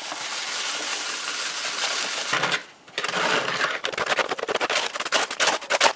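Refractory mix being poured and stirred in a container: a steady hiss for about two seconds, then after a short pause a quick, uneven run of scraping and clinking.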